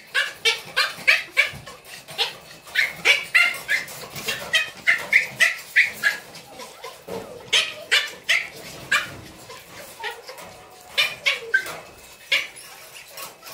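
Miniature schnauzer puppies play-fighting, with many short high-pitched yips and little barks coming two or three a second. The calls ease off briefly about ten seconds in, then pick up again.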